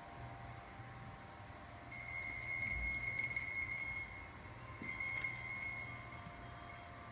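Two chime-like ringing tones over a steady low hum: the first comes in about two seconds in and lasts about two seconds, and a shorter second ring follows near the five-second mark.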